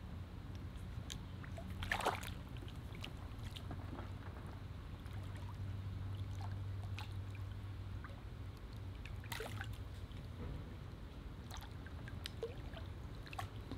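Water splashing and trickling as a snook is held in the water beside a small skiff and released, with a sharper splash about two seconds in and another near the ten-second mark.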